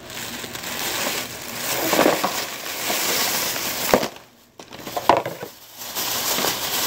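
Thin plastic bag rustling and crinkling as it is lifted and shaken out, with two sharp clicks about four and five seconds in.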